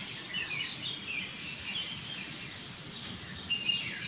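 Crickets chirring steadily, with birds chirping in short bursts over them.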